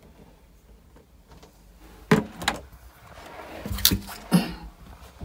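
Handling noise: a few sharp knocks and bumps with rustling, starting about two seconds in, the first knock the loudest.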